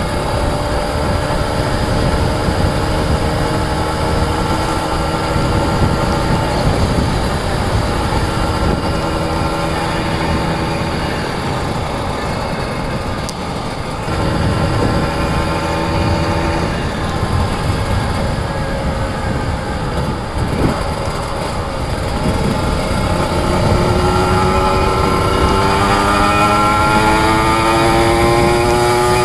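Kawasaki Ninja 150 RR two-stroke single-cylinder engine running under way, with wind noise on the microphone. Its pitch climbs steadily in the last few seconds as the bike accelerates.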